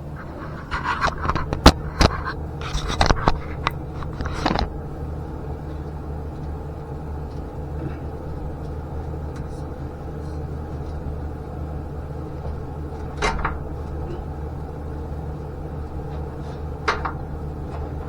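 Metal clanks and knocks as a Corvette side pipe is wiggled and worked onto the exhaust header: a quick cluster in the first few seconds, then two single knocks later. A steady low hum runs underneath.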